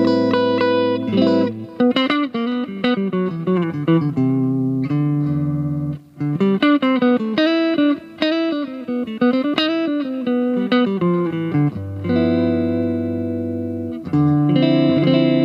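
Aria Pro II PE electric guitar being played: held chords, then a fast run of single notes with string bends, then held chords again.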